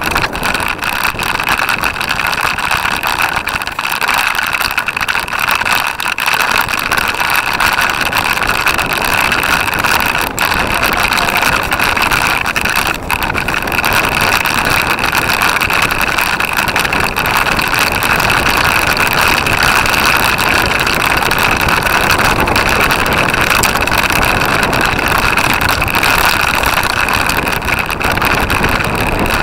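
Continuous wind and riding noise on a bicycle-mounted camera during a race lap: a loud, steady rush with rumble from the knobby tyres rolling over grass and dirt, and a couple of brief knocks from bumps in the course.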